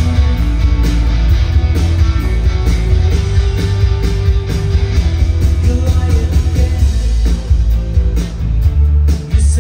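Live rock band playing loudly, with heavy bass, guitar and a steady drum beat.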